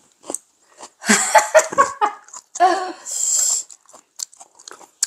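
People eating hand-cut noodle soup: a run of slurps about a second in, a long slurp around three seconds in, then light chewing and small clicks.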